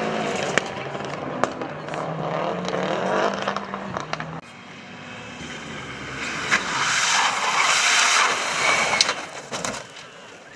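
Rally car engines at full load: first a car sliding on a gravel stage with its engine held high and steady, a few sharp cracks over it. After a cut about four seconds in, a Ford Fiesta rally car approaches fast, its engine and tyre noise building to a peak near eight seconds, then fading as it runs off into a muddy field.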